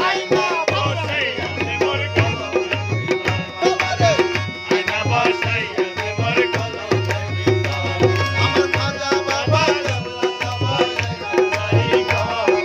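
Live music: a harmonium holding chords, with tabla and a second hand drum beating a steady rhythm, and a man singing over them.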